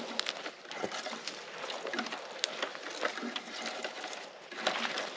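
Footsteps through dry leaf litter and twigs on a forest floor, an irregular run of crackles and rustles that grows louder near the end.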